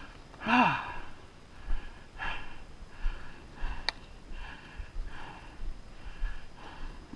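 A person breathing hard, panting in quick puffs about every three-quarters of a second, with a short falling grunt about half a second in and a sharp click near four seconds.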